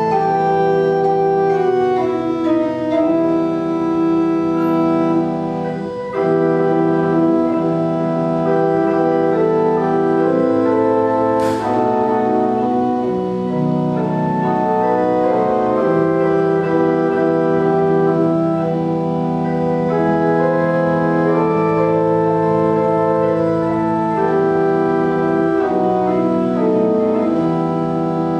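Church organ playing a slow piece of sustained, held chords that change every second or two.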